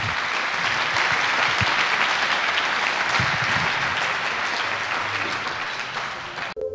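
Audience applauding, a long steady round of clapping that thins a little and then cuts off abruptly near the end.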